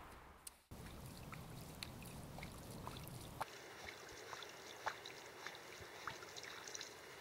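Faint trickle and lap of calm lake water, with scattered light ticks and short chirps, and a thin steady high tone from about halfway through.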